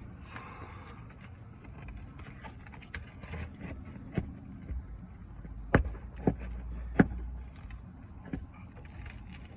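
Scattered sharp knocks and clicks of hand tools working asphalt shingles and their nails loose on a roof, with a few louder strikes in the second half.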